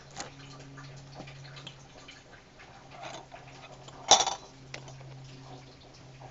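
Glassware on a table clinking: scattered small taps and clicks, then about four seconds in one loud sharp clink with a brief ring. A low steady hum runs underneath.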